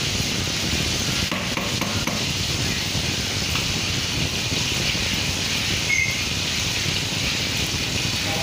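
Steady hiss and low rumble of a pot of okra soup simmering over a gas burner. A few light knocks come from a spatula stirring in the pot about a second and a half in.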